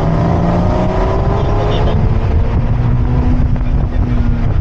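Car engine pulling with its pitch rising slowly, then holding steady and easing slightly, over heavy road and wind rumble.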